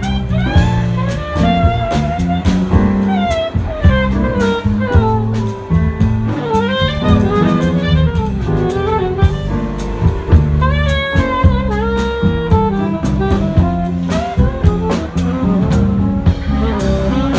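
Live jazz band playing a slow tune: a saxophone carries the melody with smooth glides between notes, over a bass line and drums with cymbals.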